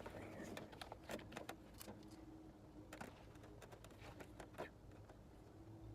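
Near silence: scattered faint clicks and light taps, as of parts being handled, over a low steady hum.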